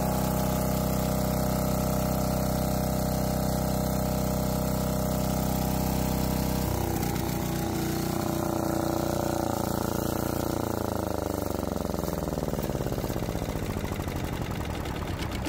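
Lombardini 15LD400 single-cylinder air-cooled diesel generator running at a steady speed. About seven seconds in it is shut down, and the sound winds down in falling pitch as the engine and generator coast to a stop, the last strokes slowing near the end.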